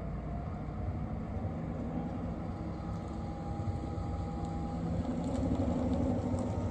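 Distant diesel locomotives of an approaching freight train running, a steady low engine drone that grows a little louder near the end.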